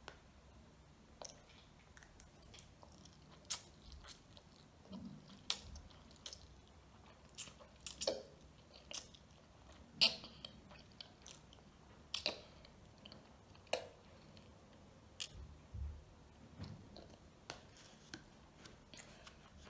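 A child chewing and slurping ramen noodles and sausages: irregular wet smacks and sharp clicks, about one a second, the loudest about ten seconds in.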